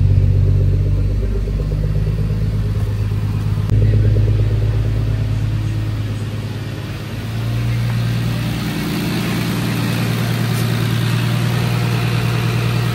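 Turbocharged BMW S52 straight-six engine of an E36 M3 idling steadily through its custom exhaust, running on a newly fitted standalone ECU.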